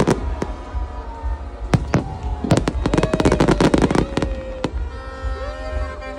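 Aerial fireworks exploding overhead in a string of sharp bangs and crackles, densest about halfway through, with long whistling tones that slowly fall in pitch, one in the middle and another near the end.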